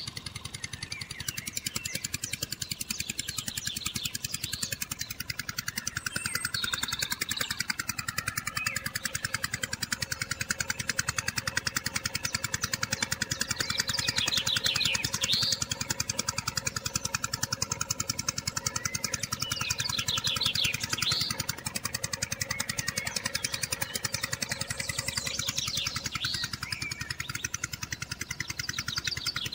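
Single-cylinder diesel engine running steadily with a rapid, even chugging, driving a small belt-driven water pump. Short bird chirps come in now and then.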